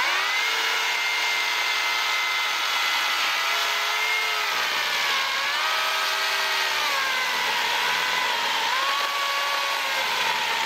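Corded Oregon self-sharpening electric chainsaw cutting through a thick black locust log: a steady motor whine over the rasp of the chain in wood, the pitch sagging a few times as the cut loads the motor.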